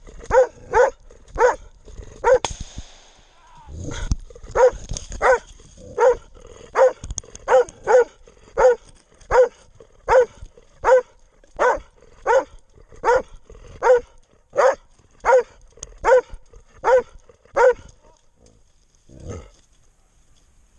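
Hunting dog barking steadily in a regular rhythm, about one bark every three-quarters of a second. The barking stops near the end, followed by one last, weaker bark.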